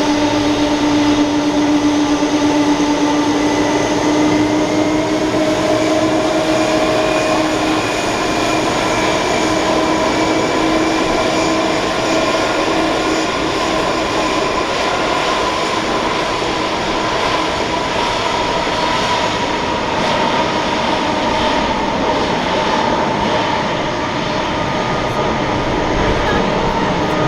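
Boeing 747-400's four jet engines running at taxi power: a steady loud roar and whine with several held tones that drift slightly in pitch, the lowest fading out about halfway through.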